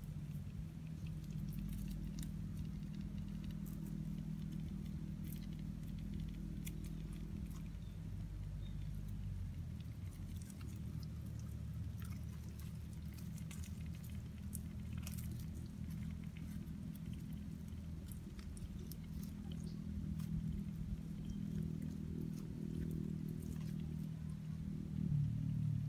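Bare hand digging and groping in wet mangrove mud inside a crab burrow: scattered small clicks, crackles and squelches over a steady low hum.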